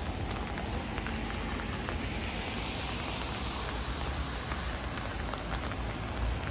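Heavy rain falling: a dense, steady hiss with scattered small drop ticks and a low rumble underneath.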